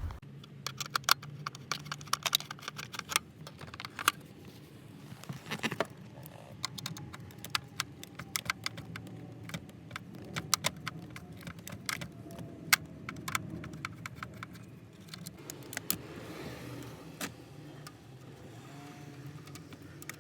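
Hand tools and screws clicking and clinking irregularly as screws are worked out of the dash trim around the climate control panel: many small sharp metal and plastic clicks.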